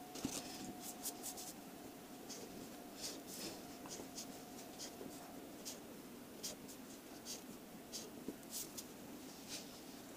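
Black Faber-Castell felt-tip marker drawing on paper, some lines ruled along a plastic ruler: many brief, scratchy strokes, irregularly spaced, with a light knock near the start.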